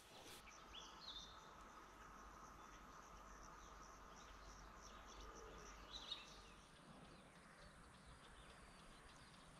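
Faint evening countryside ambience: insects chirring steadily, with a couple of short bird chirps, one about a second in and one about six seconds in.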